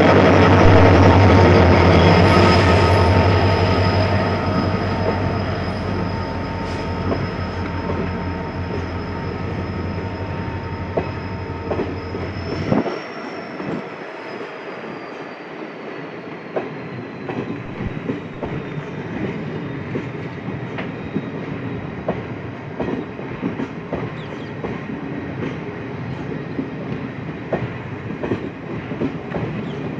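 Train coaches rolling past at low speed, their wheels squealing steadily on the curve onto the main line and clicking over rail joints. The WDP4D diesel locomotive's engine hum fades over the first dozen seconds and drops away about 13 seconds in.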